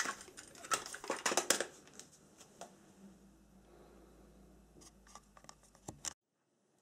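Plastic compact cassette and its case being handled and set down on a cardboard record sleeve: a quick run of small clicks and rattles for the first second and a half, then a few scattered clicks, and the sound cuts off suddenly about six seconds in.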